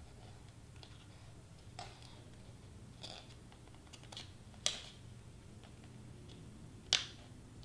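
A few scattered light clicks and taps from handling craft materials on a work surface, two of them sharper and louder than the rest, over a faint steady hum.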